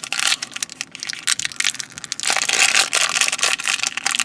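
Crinkling and crackling of a small plastic toy blind bag being handled and torn open by hand, in irregular bursts.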